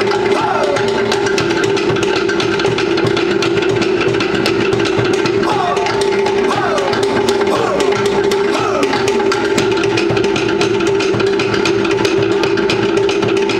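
Polynesian drum ensemble playing a fast, dense, steady rhythm, with voices calling out in rising and falling shouts over the drumming.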